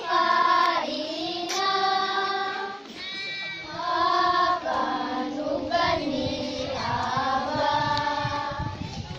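A group of schoolchildren singing an old folk song together, in long held notes that slide between pitches.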